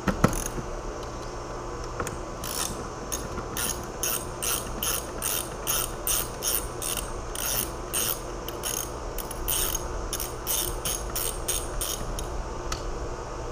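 Socket ratchet with a 13 mm socket clicking in quick strokes, about three a second, as a nut is backed off. It starts about two seconds in and stops near the end.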